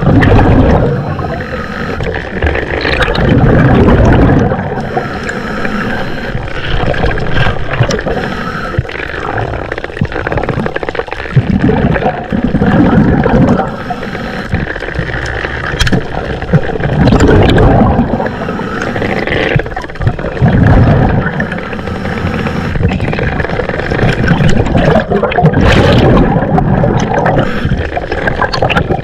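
Underwater breathing through a scuba regulator: gurgling bursts of exhaled bubbles every few seconds, with scattered clicks and knocks.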